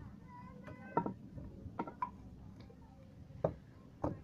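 A wooden baton knocking on the spine of a high-speed-steel knife to drive it into a log: four sharp knocks at uneven spacing, the first about a second in.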